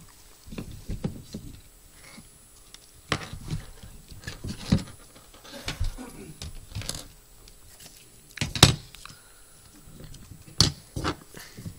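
Irregular handling noises: clicks, knocks and rustles as gloved hands move preserved heart specimens and instruments about on a tray. The sharpest knock comes about two-thirds of the way through.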